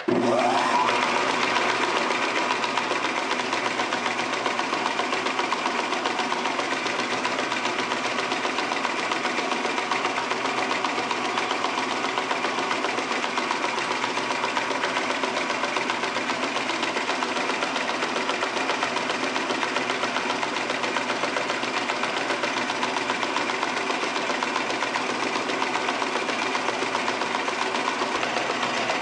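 Metal lathe switched on, its motor and chuck spinning up with a brief rising whine, then running steadily.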